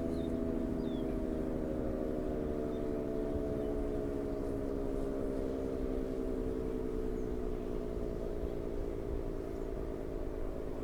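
ACA Allertor 125 siren with 10/12 ports, its chord of tones sliding slowly lower in pitch and growing slightly quieter as it winds down after the Alert signal.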